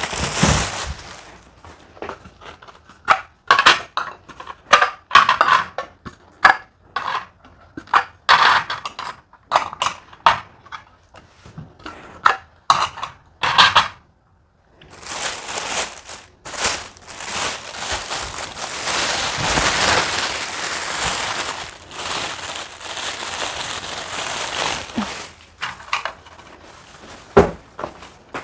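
Plastic bags crinkling and rustling in quick irregular bursts as fruit and snack packets are handled. After about fifteen seconds this gives way to a longer steady hiss of rustling.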